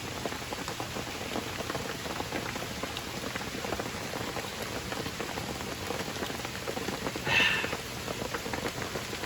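Steady rain falling on surfaces, an even hiss without pauses, with one brief louder sound about seven seconds in.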